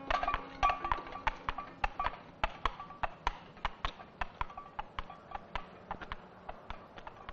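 Film-score percussion: dry wood-block-like knocks ticking at about four a second, clip-clop fashion, with a few held notes of the tune fading out at the start.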